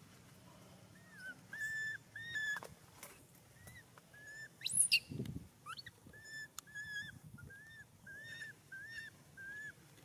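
Baby monkey calling: a run of about a dozen short, high, whistle-like coos, with one sharp rising squeal about five seconds in.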